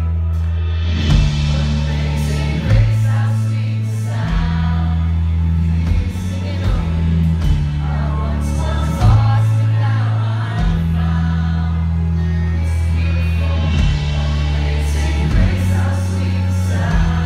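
A live Christian pop-rock band plays with a male lead voice singing, over a heavy bass line whose held notes change every second or two.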